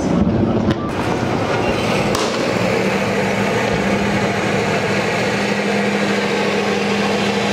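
A tank's engine running with a steady low hum amid clattering noise, with one sharp knock about two seconds in.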